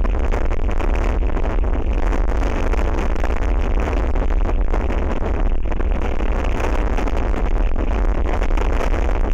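Strong wind buffeting the microphone: a steady, loud rushing noise with a heavy low rumble.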